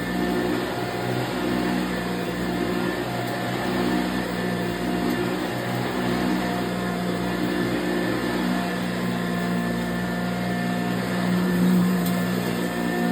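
1987 Eureka self-propelled upright vacuum cleaner running steadily: a constant motor hum over the rush of air, swelling slightly near the end.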